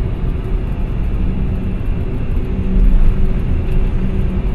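Cockpit noise of a KC-10 Extender at takeoff power during its takeoff run and lift-off: a loud, steady low rumble of engines and airflow with a faint steady hum.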